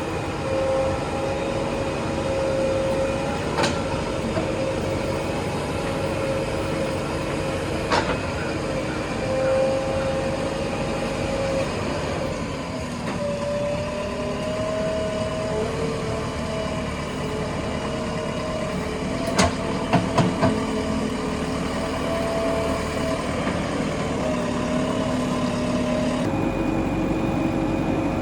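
Backhoe loader's diesel engine running under changing hydraulic load, its pitch rising and falling, with sharp metallic knocks and a quick cluster of loud clanks about two-thirds of the way through.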